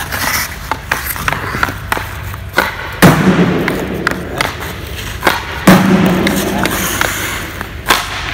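Ice hockey stick working pucks on rink ice: light clicks of the blade on the puck, then a sharp crack of a shot about three seconds in and again near six seconds, each followed by a second or so of scraping on the ice, and another crack near the end.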